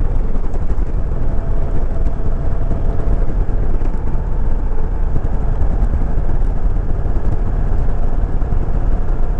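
Honda VTX 1300R V-twin motorcycle cruising at a steady speed, its engine running under a dense, steady rumble of wind on the microphone.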